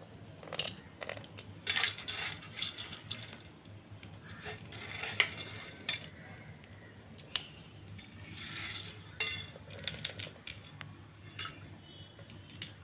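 Scattered quiet clinks and taps against a steel serving plate, coming at irregular intervals.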